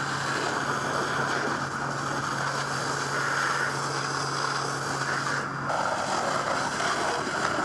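Fire hose stream spraying water onto smouldering debris: a steady rushing hiss. A low steady hum underneath stops a little over halfway through.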